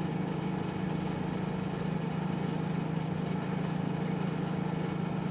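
A Dodge Grand Caravan's 3.8-litre V6 idling steadily, an even hum.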